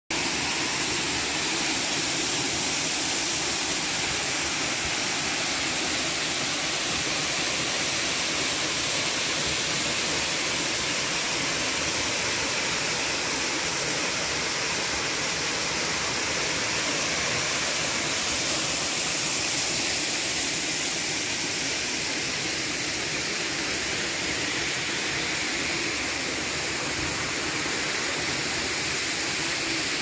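Waterfall pouring down rock into a pool: a steady, even rush of falling water.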